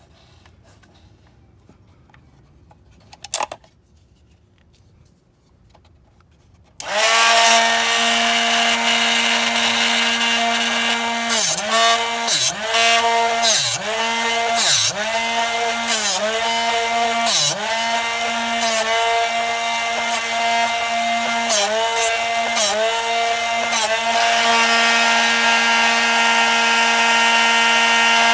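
A short click about three seconds in, then the Drill Doctor 500X drill-bit sharpener's motor switches on at about seven seconds and runs with a steady hum. Its pitch sags briefly, with a grinding scrape, about nine times as the drill bit is worked against the sharpening wheel.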